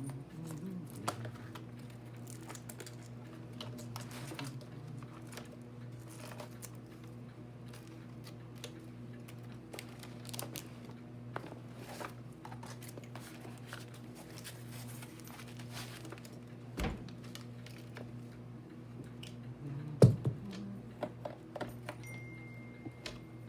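Small clicks, rattles and taps of hands handling tools and plastic parts, over a steady low hum. A dull knock comes about seventeen seconds in and a sharper, louder knock about twenty seconds in.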